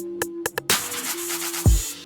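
Electronic intro music with sharp drum-machine hits, a steady synth tone and a deep falling bass drop near the end.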